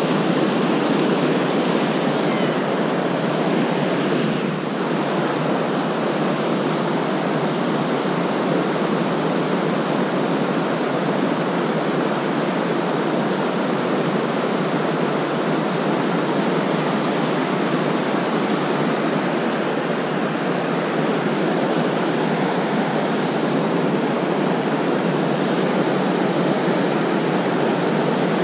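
River whitewater rushing over rocks: a steady, unbroken noise of running water.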